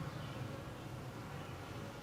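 Honeybees buzzing in a low, steady hum.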